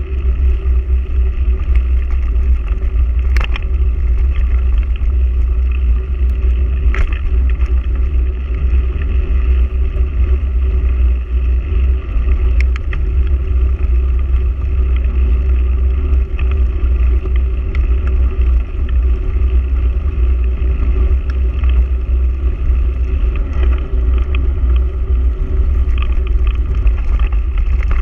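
Wind buffeting a bike-mounted action camera's microphone during a mountain bike ride on a gravel track, with a steady low rumble and the crunch of tyres rolling over the gravel. A few sharp knocks from bumps in the track.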